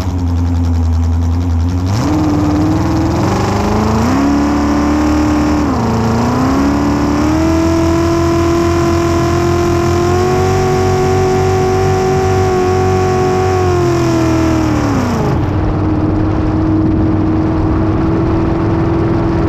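Racing hydroplane's engine at full throttle off the start, its pitch climbing in steps as the boat gets up to speed, dipping briefly about six seconds in, then holding high. About fifteen seconds in the pitch drops sharply and the engine runs steadily at a lower speed, throttled back.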